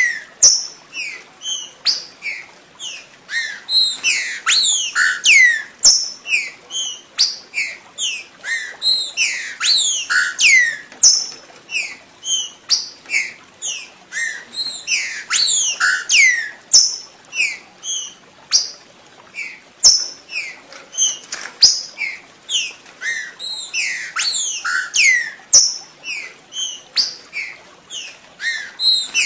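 Green-winged saltator (trinca-ferro) song: a continuous, dense run of quick, downward-slurred whistled notes, several a second, with a few sharp clicks scattered through it.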